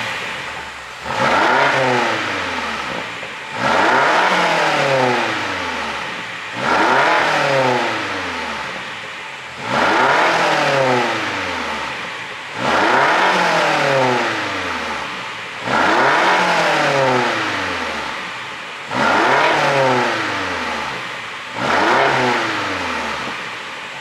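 BMW X6 M's twin-turbo V8, running an ECU pop tune, heard at the quad exhaust tips and revved in neutral eight times. Each blip rises sharply, then falls away slowly, about every three seconds.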